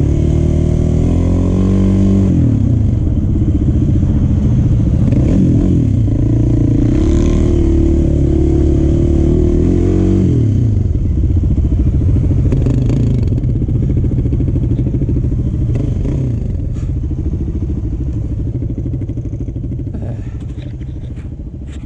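Sport quad (ATV) engine heard from the rider's helmet, revving up and down under throttle through the first half. After about ten seconds it drops to lower, steadier running, and it fades away near the end.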